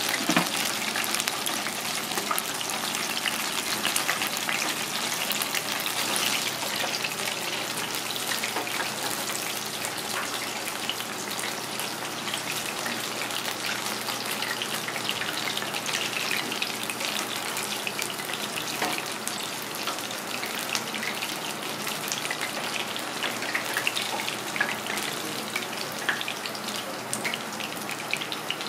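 Hot oil in a deep fryer sizzling and crackling steadily around tempura fritters as they cook, a dense patter of small pops, slightly louder in the first few seconds.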